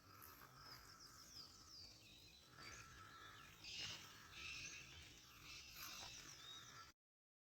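Faint outdoor birdsong: several small birds chirping and trilling, with a louder burst of calls about four seconds in. It cuts off suddenly near the end.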